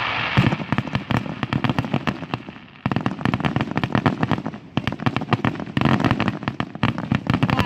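Fireworks display: aerial shells bursting into a dense, rapid crackle of many small pops. The crackling slackens briefly just before three seconds in, then resumes at full density.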